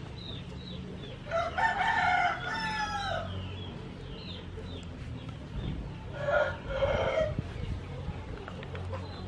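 Roosters crowing: one long crow about a second in, then a second, shorter crow about six seconds in.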